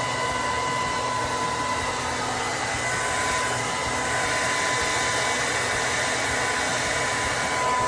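Hand-held hair dryer blowing steadily: an even rush of air with a high, steady motor whine.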